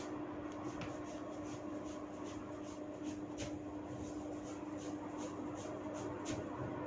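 Hands working a person's hair and scalp during a hair-cracking head massage: short, sharp, scratchy crackles of hair being tugged and rubbed, about two or three a second and unevenly spaced. A steady low hum runs underneath.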